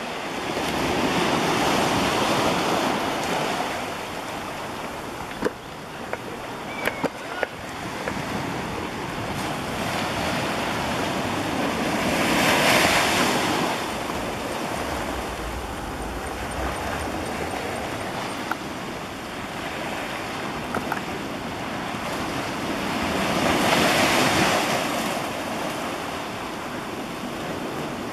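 Ocean waves breaking and washing up the beach, a steady surf wash that swells to a louder break about every eleven seconds. A few brief clicks about six seconds in.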